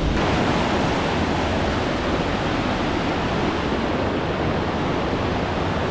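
Steady rushing of the Buchenegger Waterfall, its falling water making an even, unbroken noise.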